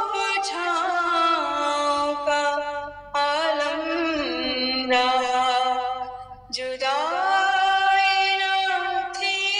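A solo voice singing an Urdu ghazal without any instrumental accompaniment. It sings long held notes with slow gliding ornaments, in phrases broken by short pauses about three, six and a half, and nine seconds in.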